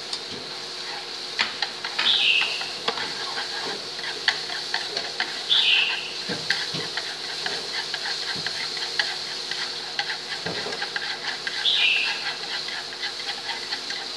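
Minced garlic, lemongrass, shallot and chili sizzling in hot oil in a nonstick frying pan, stirred with wooden chopsticks that tap and scrape against the pan many times. Three short high squeaks, each sliding down in pitch, stand out about two, six and twelve seconds in.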